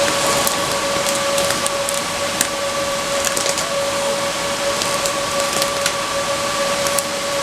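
A steady whirring hum with a constant whine, and scattered small clicks and crackles of a graphics card and its packaging being handled.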